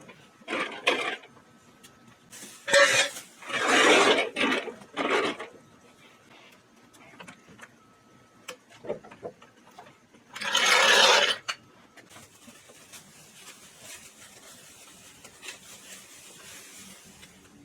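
Workshop handling noise from tools and metal car parts during suspension assembly: scattered clinks and knocks, with several short bursts of hissing noise, the longest about eleven seconds in.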